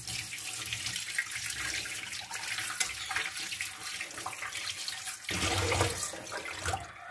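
Kitchen tap running into a steel bowl in a stainless-steel sink, the water splashing as a small fish is rinsed and rubbed under the stream, with heavier splashing about five seconds in.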